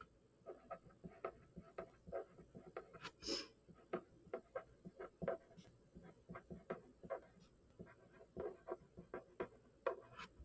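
Pen writing on a paper worksheet: a quick, irregular run of short scratchy strokes as words are handwritten, with one longer stroke about three seconds in.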